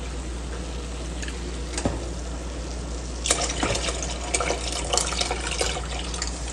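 Thin yogurt and gram-flour (besan) batter poured from a plastic bowl into a steel pot, splashing and gurgling in irregular spurts from about three seconds in, over a steady low hum.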